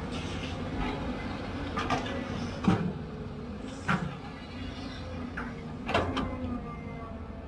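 CAT 320 hydraulic excavator working its bucket over a dump truck, its diesel engine droning steadily, with four sharp metal clanks spread through, the loudest about two and a half seconds in.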